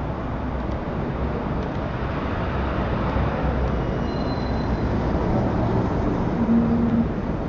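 Steady rumble of city traffic and vehicle engines, with a brief low hum standing out near the end.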